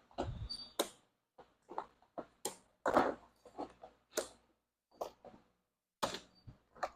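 Irregular clicks, taps and knocks with some rustling, like small parts and tools being handled.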